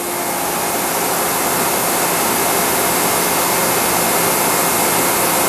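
Hart 2000 psi electric pressure washer running with the trigger held: a steady, loud hiss of water jetting from the 15-degree nozzle over a steady hum from its induction motor and axial pump. The pump is under full load, holding about 1800 psi.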